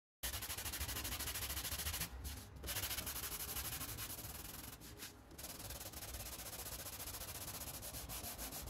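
Knife handle scale rubbed back and forth on sandpaper laid on a flat board, flattening its face for gluing: a steady scratchy sanding, with two short breaks about two and five seconds in.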